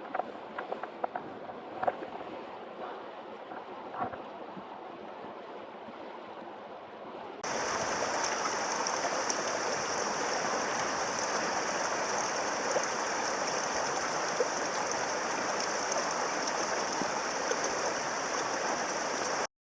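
Mountain stream water rushing steadily. It is quieter at first with a few light knocks, then about seven seconds in it switches abruptly to a louder, even rush that cuts off suddenly at the end.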